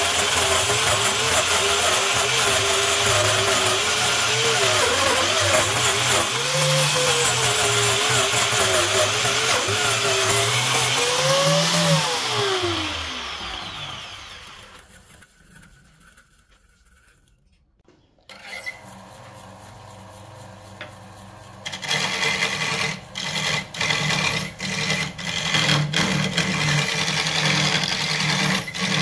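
An angle grinder runs with its disc pressed against a wood blank spinning on a lathe, its pitch wavering, then it is switched off and winds down about twelve seconds in. After a few quiet seconds, a hand-held turning tool cuts into a spinning wood blank in short, choppy strokes.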